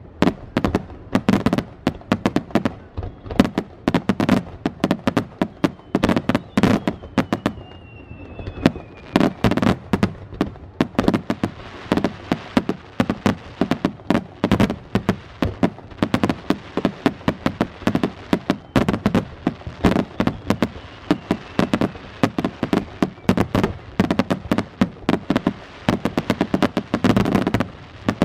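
Aerial fireworks shells bursting in a rapid, continuous barrage, several sharp bangs a second with low rumbling booms between them. A faint falling whistle is heard about seven seconds in.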